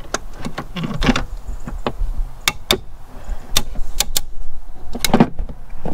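Sharp metallic clicks and clanks, about ten at uneven intervals, from channel-lock pliers working a hose clamp onto a coolant reservoir hose.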